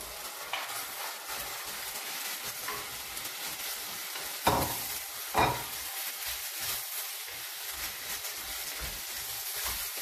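Fresh meat searing in hot oil in a cast iron pot, stirred with a wooden spoon: a steady sizzle. Two sharp knocks come about halfway through.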